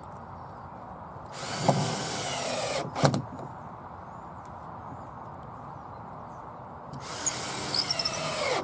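Cordless drill-driver driving screws into softwood battens, in two runs: one about a second and a half in with a short burst just after, and another from about seven seconds in, its pitch dropping as the screw is driven home. The second run ends with the driver bit breaking.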